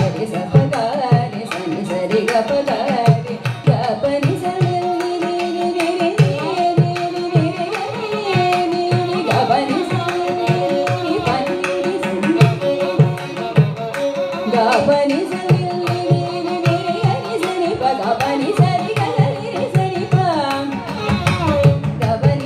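Carnatic music in raga Hamsadhwani: a female voice and violin carry a melody of held, gliding notes over a steady, rhythmic stream of mridangam strokes.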